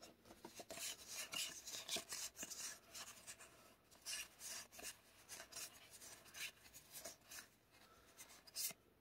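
Magic: The Gathering trading cards being slid one past another in the hand while flipping through a pack: a soft run of short, irregular rubbing swipes and flicks.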